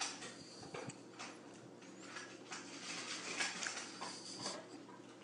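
A cat moving on a granite countertop: a few faint, soft taps over quiet room tone.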